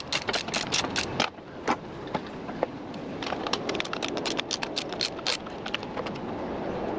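Hand ratchet clicking in quick, even strokes, about five clicks a second, which stops about a second in; a few scattered clicks follow a couple of seconds later, as bolts are worked loose on a small Briggs & Stratton engine.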